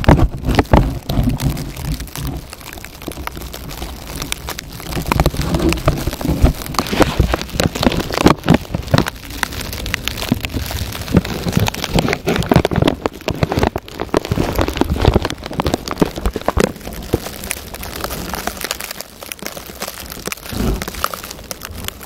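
Blizzard snow pattering against the microphone in many irregular ticks, with wind gusts buffeting the microphone near the start.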